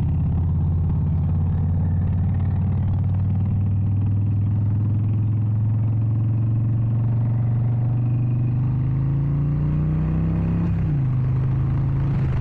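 Harley-Davidson XL 883 Iron Sportster's air-cooled V-twin running under way, heard from the rider's seat. The engine note holds steady, then climbs for a couple of seconds and drops sharply about eleven seconds in as the bike shifts up a gear.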